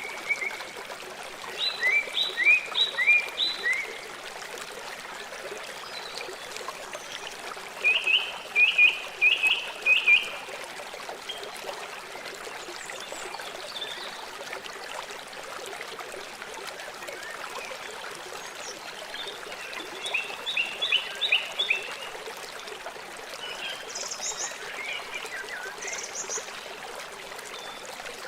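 River water flowing with a steady rush. Over it come short runs of rapid, high-pitched animal calls, the loudest near the start, about eight seconds in and about twenty seconds in.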